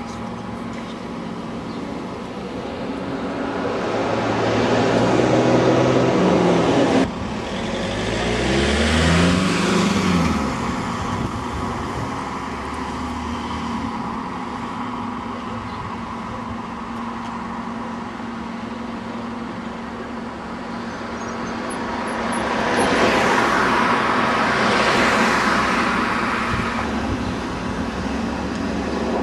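Buses and road traffic. A diesel engine note swells and glides up and down as a vehicle pulls away and passes, and it is cut off abruptly about seven seconds in. Another vehicle swells past with tyre noise near the end.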